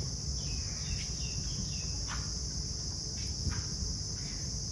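Scissors snipping through paper wristbands, a few faint short snips in the second half. Under them runs a steady high-pitched buzz, like insects, and a low rumble.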